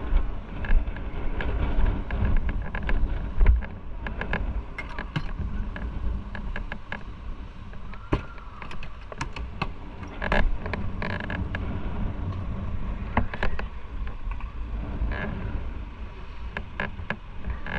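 Motorcycle engine running as the bike rides off at low speed, with frequent small clicks and rattles and some wind on the microphone.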